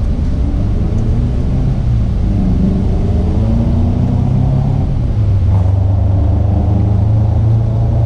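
A motor vehicle's engine running, a steady low rumble with a faint shift in pitch a few seconds in.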